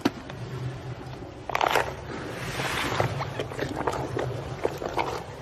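A hippo eating apples: apples knock into its open mouth and its jaws close on them. There is a sharp knock at the start, a louder clatter about a second and a half in, then a burst of rushing noise and scattered clicks and crunches over a steady low rumble.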